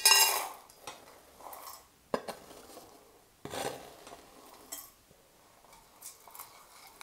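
Chopped chocolate couverture scraped with a knife off a plastic cutting board into a small stainless-steel bowl, with a ringing clink of metal on the bowl at the start, a few sharp clicks and a rustle of chocolate shavings pouring in. Near the end a spoon clinks in the bowl.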